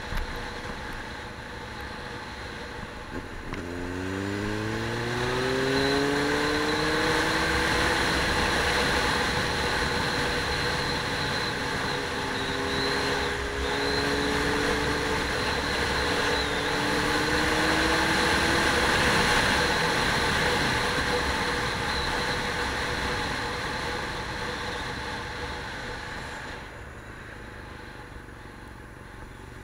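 Motor vehicle engine accelerating, its pitch rising steeply and then levelling off as it runs on under steady road and wind noise. It climbs in pitch again about twelve seconds in, and the sound drops away near the end.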